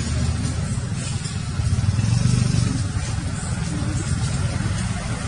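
An engine running steadily at low pitch, briefly louder about two seconds in.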